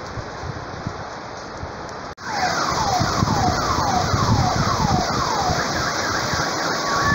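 Heavy rain pouring steadily. After a cut about two seconds in, the rain is louder, and an alarm siren sounds over it with a run of falling whoops, about two a second.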